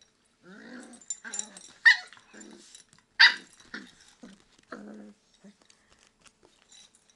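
Beagle puppy and adult beagle play-fighting: a string of short growls and yips, with two loud, sharp barks about two and three seconds in, then only faint scuffling for the last couple of seconds.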